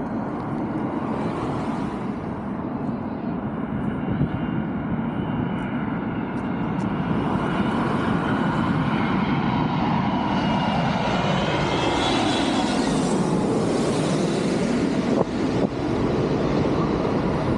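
Jet airliner passing low overhead on its landing approach: a growing engine roar with a whine that falls in pitch as it goes past.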